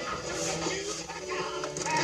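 Music playing from an old car stereo through the truck's dash speakers, growing steadily louder as the volume is turned up.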